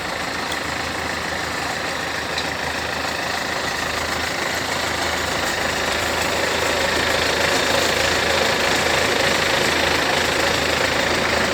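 Farm machine's engine and unloading mechanism running steadily during unloading, with a steady whine over the engine. It gets slightly louder about halfway through.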